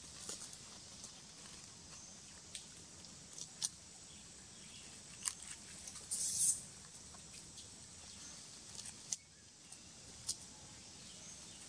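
Long-tailed macaques feeding on cucumbers: scattered sharp clicks and crunches, with a brief hissing rustle about six seconds in.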